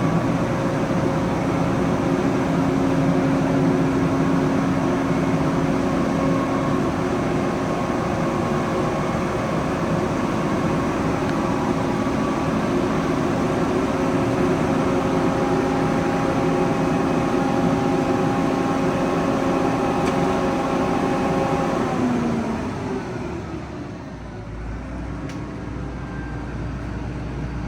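A large farm machine's engine runs steadily with a steady whine over it. About 22 seconds in, its pitch drops and it fades, leaving a quieter, low, steady engine rumble.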